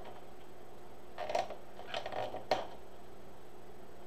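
Deco mesh being scrunched by hand, giving a few short rustles and crinkles about a second in and again around two seconds, then one sharp tap.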